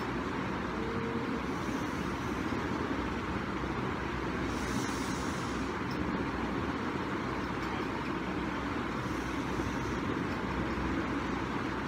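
Steady low rumbling hum and hiss of room or traffic background noise, unbroken throughout, with a faint higher hiss rising briefly about five seconds in.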